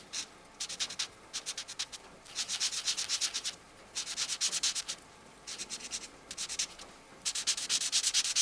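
Felt-tip marker tips rubbed rapidly back and forth on colouring-book paper to fill in colour: six runs of quick scratchy strokes with short pauses between them.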